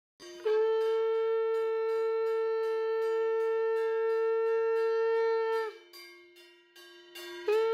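Conch shell (shankh) blown in one long steady note lasting about five seconds, sliding up slightly as it starts, then a second blast begins near the end. It is sounded as the Saraswati idol is lifted and carried out for immersion.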